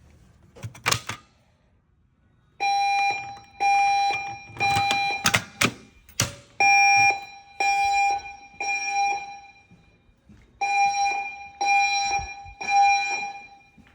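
Fire alarm voice-evacuation speakers of a Notifier Inspire system sounding the evacuation signal tone: a loud, steady-pitched tone pulsed in the temporal-three pattern, three pulses about a second apart, a pause, then repeated, three groups in all. There are a couple of sharp clacks near the start and in the middle.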